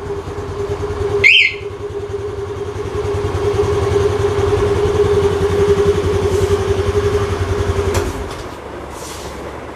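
Honda Activa scooter's single-cylinder four-stroke engine idling steadily after being started from an anti-theft alarm's remote, then cutting off with a click about eight seconds in. A brief high chirp sounds about a second in.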